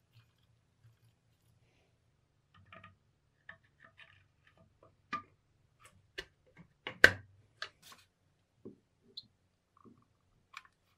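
Scattered small clicks, taps and knocks of metal parts and tools being handled on a workbench, with one sharper knock about seven seconds in.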